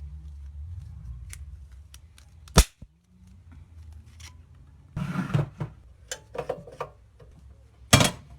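Two loud sharp bangs about five seconds apart, with a low hum under the start that drops out at the first bang, and scattered clicks and clatter between them.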